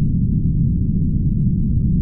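Steady low rumbling drone, loud and even, with nothing in the higher range above it.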